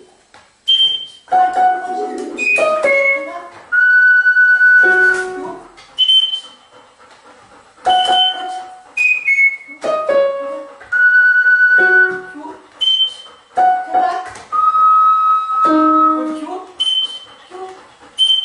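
Music: a melody of clear, held notes in short phrases with brief gaps between them, the phrase pattern coming round again every few seconds.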